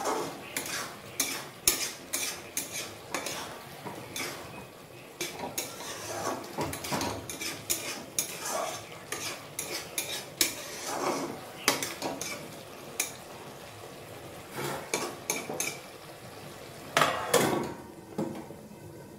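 Metal spatula scraping and clinking against a metal wok, stirring a thick taro mash, in quick irregular strokes that grow louder near the end.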